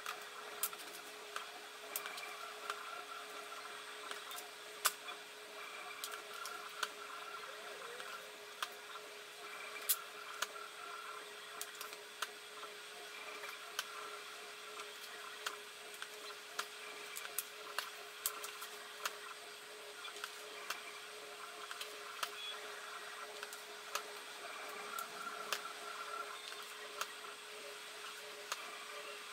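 Small wooden end-grain blocks clicking and knocking as they are set down one after another into a glue-up frame, many short sharp knocks at an irregular pace, over a steady background hum.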